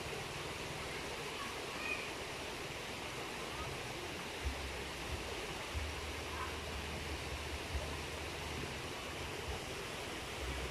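Steady rush of flowing creek water, with a faint chirp about two seconds in.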